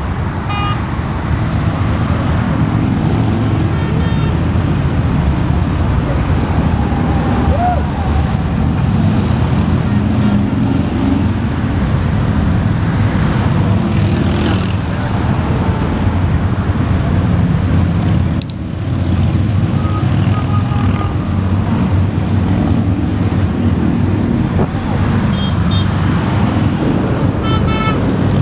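Multi-lane highway traffic passing below: a steady, loud rumble of tyres and engines from cars, trucks and motorcycles, dipping briefly about two-thirds of the way through.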